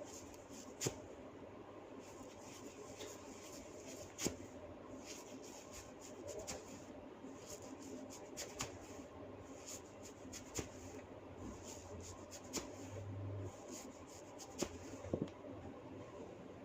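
Hands rubbing and scratching through long hair in a head massage, a continuous rustle broken by scattered sharp cracks as locks of hair are tugged (hair cracking).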